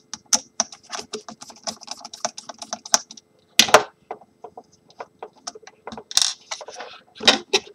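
Small screwdriver working the screw out of a Parallax servo's output shaft, a rapid run of small metallic clicks and scrapes. About three and a half seconds in comes a louder clatter as the tool or parts are set down on the wooden table, followed by scattered handling clicks.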